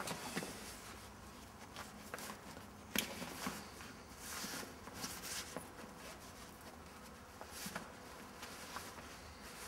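Faint clicks and rustles of hands working on a microlight trike's seat frame and straps, with one sharper click about three seconds in.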